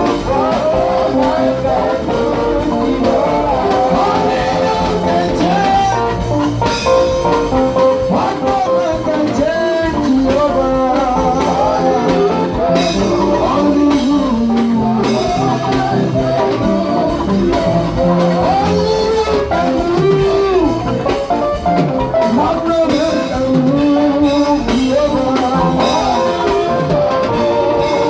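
Music with singing over instruments and drums, continuous and loud.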